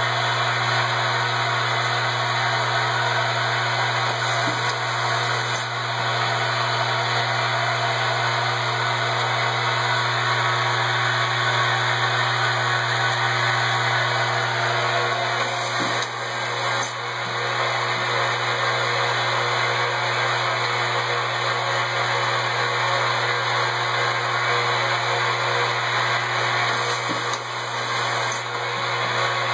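Automated laser-marking and parts-handling machine running: a steady mechanical whir over a constant low hum, with a few faint clicks.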